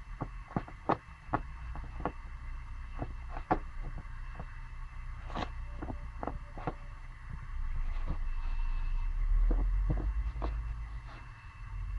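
Pomsky puppy scuffling and biting at a plush dog bed: irregular sharp clicks and taps over a low dull noise, which grows louder about eight seconds in and fades near the end.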